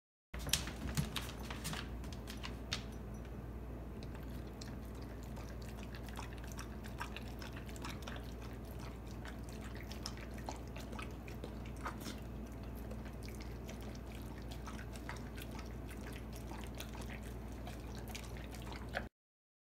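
A dog eating raw ground meat from a bowl: an irregular run of wet smacking and licking clicks.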